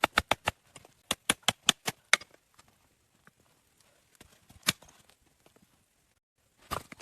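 A fast, even series of sharp knocks, about five a second, that pauses briefly and then runs on for about another second. After that come only a few scattered knocks, with a louder one near the end.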